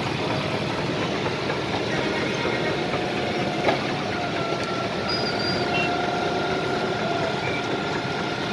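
Heavy diesel machinery running steadily: concrete mixer trucks and a truck-mounted concrete pump working while concrete is pumped into a pillar, with a faint steady high tone over the engine noise and one sharp knock about three and a half seconds in.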